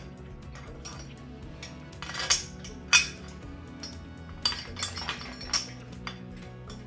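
Steel adapter plate and engine stand mounting fingers clinking and knocking as they are shifted into place. There are a few sharp metal knocks, the loudest about three seconds in and a quick cluster near the end, over background music.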